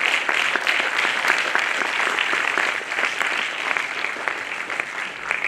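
Audience applauding: many hands clapping, easing off a little toward the end.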